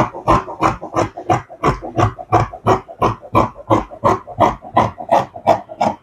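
Red-handled scissors snipping through two layers of printed fabric, a steady run of crisp cuts at about three a second.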